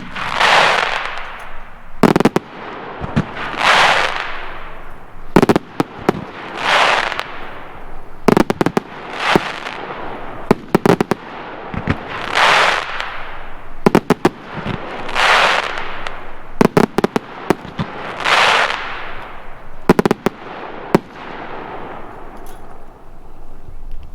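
A 140-shot 1.3G consumer fireworks cake firing fan volleys of white blink with bouquet: clusters of sharp launch and break bangs about every three seconds, each followed by a hissing crackle that lasts a second or so. The cake fires quickly through to the end.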